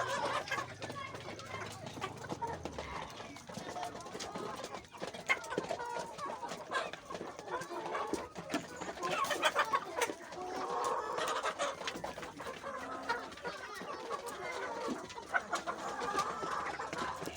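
A flock of domestic chickens clucking, with many short calls overlapping.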